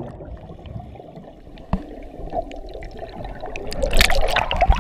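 Muffled rushing and bubbling of river water heard with the camera submerged after a kayak capsize. Louder splashing comes in near the end.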